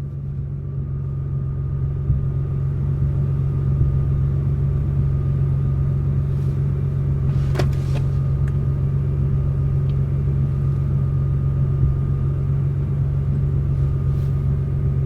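Car engine and road noise heard from inside the cabin while driving: a steady low drone, with one brief click about halfway through.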